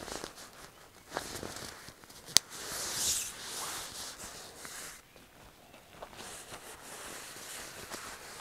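Hammock strap and fabric being handled: scattered rustles and light clicks, with one sharp click of the strap hardware about two and a half seconds in.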